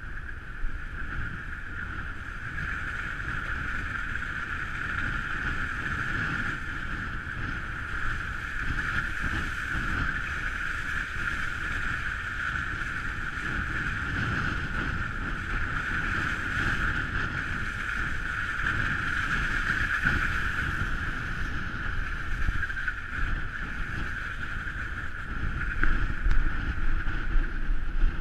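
Car driving on a snow-covered road, heard from a camera mounted outside on the bonnet: a steady rush of wind and hiss over the low rumble of the engine and tyres. Low thumps and knocks get louder in the last few seconds.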